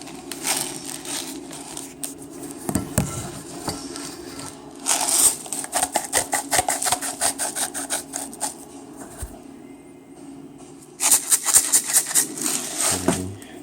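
Salt shaker shaken over buttered corn on the cob: two bursts of rapid rattling clicks, about five seconds in and again near the end.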